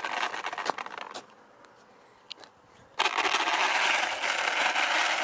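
3D-printed RC car with a brushless motor driving over rough pavement: a steady rushing noise of tyres and drivetrain, with a few clicks. It drops almost to silence about a second in, then comes back suddenly at full level about three seconds in.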